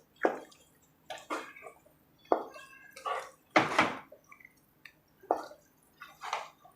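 Thick, oily kali dough of rice, fenugreek and palm jaggery being stirred and turned in a pan: a wet slapping squelch roughly once a second, the loudest about three and a half seconds in.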